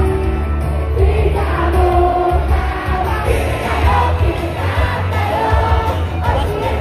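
A song sung live into a microphone over a loud backing track with heavy bass, played through a PA system.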